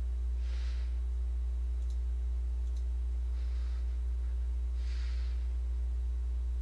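Steady low hum under a quiet room, with three soft breaths and a couple of faint clicks.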